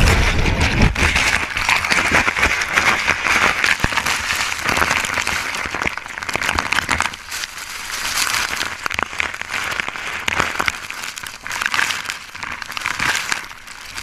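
Whitewater churning and splashing around a kayak at the base of a waterfall, close on the microphone: a steady rushing hiss full of small splashes and crackles. A deep rumble dies away in the first second, and the water is a little quieter from about seven seconds in.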